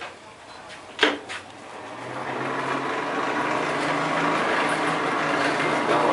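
A single metal clank about a second in, then a blacksmith's forge blower starting up and running steadily, a rush of air with a steady hum, blowing the coal fire hot.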